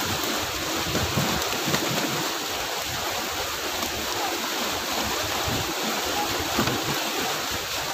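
Steady rushing of water at a pond harvest, an even noise with irregular low gusts.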